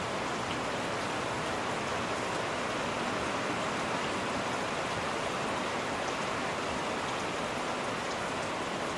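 Steady rainfall, an even hiss of many drops with faint scattered patters.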